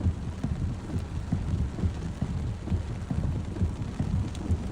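Wind buffeting the microphone during a rainstorm, heard as a low, uneven rumble with irregular thumps.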